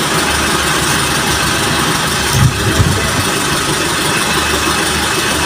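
Boom truck engine idling steadily with a pulsing low hum while its crane holds a lifted vehicle cab. Two short low knocks come about two and a half seconds in.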